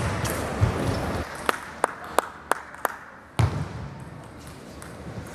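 A table tennis ball clicking sharply against a table or paddles, five taps about a third of a second apart, then a single dull thump.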